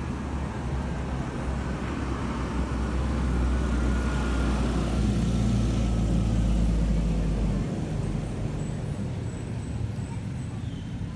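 Road traffic: a vehicle's engine rumble, loudest around the middle, dropping away abruptly about two-thirds of the way through, then a lighter steady traffic hum.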